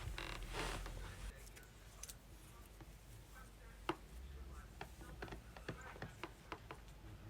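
Faint handling noise from hands working at hair and a hair wrap: a soft rustle in the first second, then scattered small clicks and taps, the sharpest about four seconds in.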